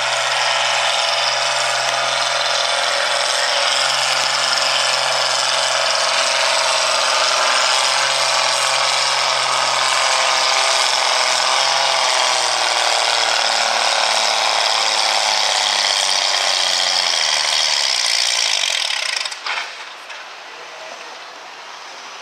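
Farmall tractor pulling at full throttle, its engine running hard under a loud, dense rattling clatter; the engine note sags slowly as the load builds through the second half of the pull. The noise cuts off sharply near the end as the pull stops.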